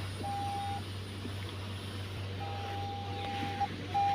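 Electronic beeping at one steady pitch, in uneven lengths: a short beep, a long one of over a second, then a short one near the end, over a steady low hum.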